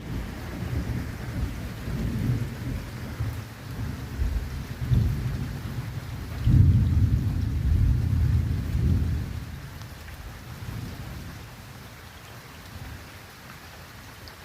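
Thunder rumbling long and deep through steady rain, loudest about halfway through and dying away over the last few seconds while the rain keeps hissing.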